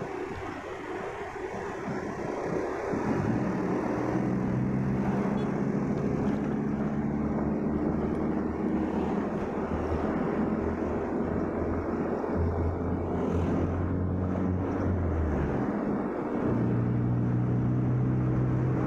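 Motorcycle engine running under way, heard from the rider's seat over road and wind noise. Its steady hum gets louder and higher about three seconds in, dips briefly, and comes back stronger near the end.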